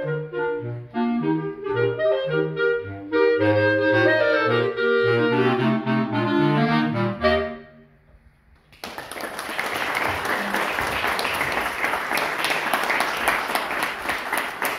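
A clarinet quartet, three clarinets and a bass clarinet, plays the closing bars of a piece, ending about seven and a half seconds in. After a brief pause an audience applauds.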